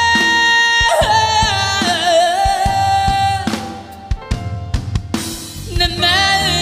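Music from a Korean ballad recording: a held, wavering melody line over a drum kit. It thins to a few sparse drum hits for about two seconds past the middle, then the full band comes back in near the end.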